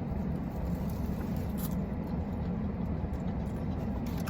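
Steady low rumble of a vehicle, with a few faint clicks.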